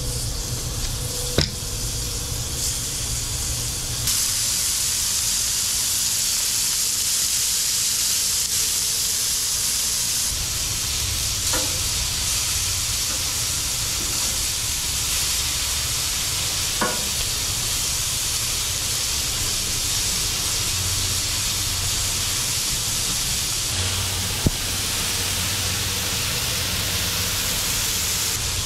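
Wagyu beef strips sizzling on a hot Blackstone flat-top griddle, a steady frying hiss that grows louder about four seconds in, with a few sharp clicks scattered through.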